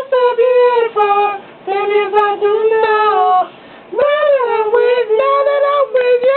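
A single high-pitched voice singing long held notes without clear words, in phrases with two short breaks.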